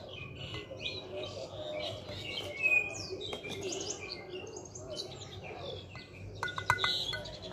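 Small birds chirping and twittering. A metal spoon clinks against a glass measuring jug a few times about six and a half seconds in, while a drink is stirred.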